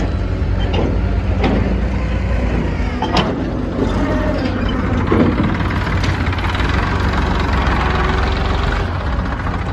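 Heavy diesel engines of a backhoe loader and tractor running steadily, with a few sharp knocks.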